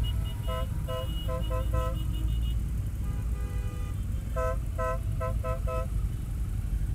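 Vehicle horns tooting in quick rhythmic volleys: about five short toots in the first two seconds and another five about four and a half seconds in. Under them runs the steady low rumble of a moving motorcycle's engine and wind.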